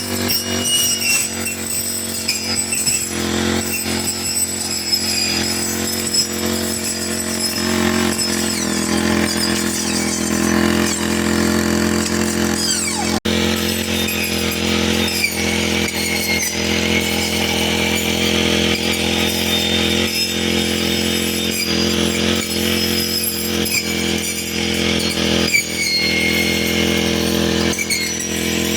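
Four-stroke brush cutter (grass trimmer) engine running steadily at cutting speed while mowing grass, with a brief break about halfway through.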